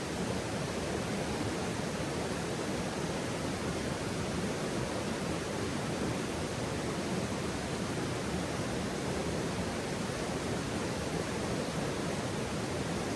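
Steady rushing of flowing water, an even wash of sound with no crackles or pops standing out.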